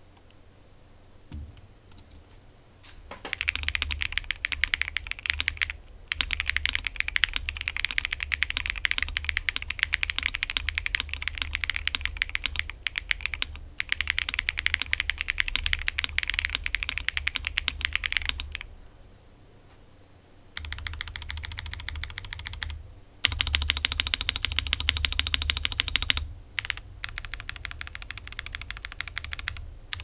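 Typing test on a custom Akko ACR75 v2 mechanical keyboard with an acrylic case, lubed Tecsee Blue Balloon linear switches and cherry-profile dye-sub PBT keycaps: fast runs of keystrokes with a clean, clacky sound. The typing starts about three seconds in, stops for about two seconds in the middle, and comes in shorter bursts with brief breaks towards the end.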